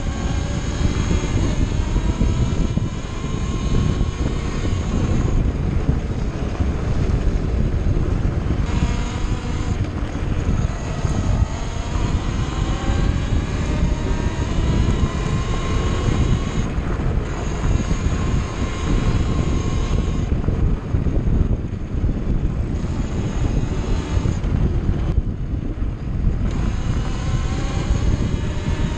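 2009 KTM 400 EXC's 400 cc four-stroke single-cylinder engine revving up and down through the gears as the enduro bike is ridden, its pitch climbing again and again and dropping back as the throttle is rolled off several times.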